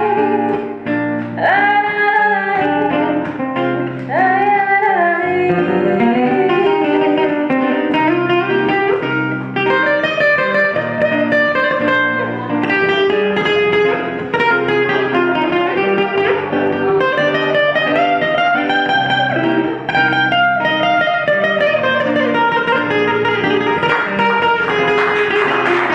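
A woman singing with classical guitar accompaniment, her voice sliding between notes over the plucked guitar.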